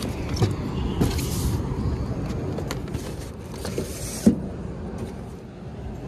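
Steady low rumble of a running Carrier rooftop unit, its failed VFD bypassed so the fan runs constantly. Over it come scattered knocks and clicks of handling, the loudest about four seconds in, and two short rustles near 1 and 3.5 seconds.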